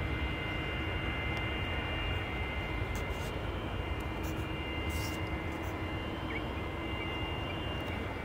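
Aircraft engines running steadily: a low rumble with a steady high-pitched whine, easing off slightly.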